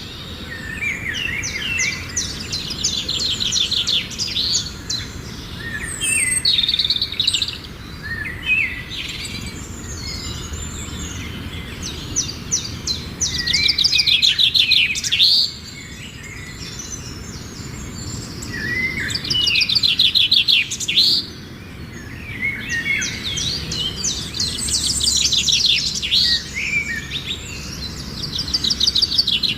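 Songbirds singing: repeated fast trilled phrases of a few seconds each, mixed with short chirps, coming back every several seconds.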